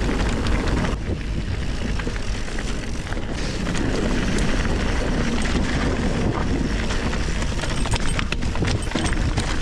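Bicycle rolling fast over a dusty, stony dirt track: heavy wind rumble on the microphone, tyre noise and many small rattles and knocks from the bike.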